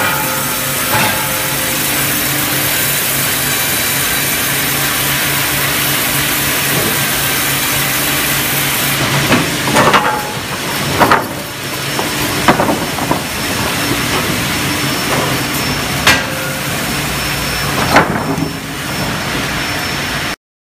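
Sawmill band saw line with a hydraulic log carriage running: a steady loud din of saw and machinery with a low hum, its high hiss dropping away about nine seconds in. About six loud knocks follow as sawn timber is handled on the steel roller conveyor, and the sound cuts off suddenly just before the end.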